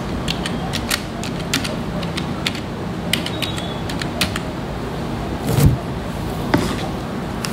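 Computer keyboard keys tapped in quick, irregular succession, typing a password, over a steady background hiss and hum. A dull thump comes about five and a half seconds in.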